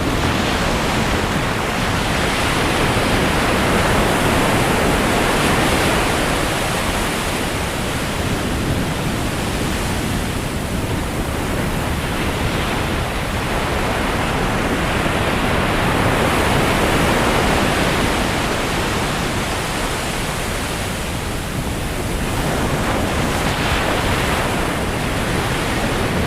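Ocean surf: a steady rush of waves that swells and eases every several seconds.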